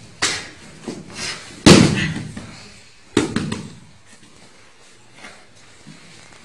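Thuds and slaps of a body being thrown down and pinned on padded martial-arts mats. The loudest, heaviest thud comes about two seconds in, a second strong one about a second later, and smaller knocks come before them.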